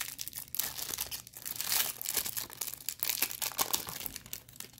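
Clear plastic wrapper of a trading-card pack crinkling and crackling as it is peeled off a stack of cards and the cards are pulled out. The crackle is dense and thins out near the end.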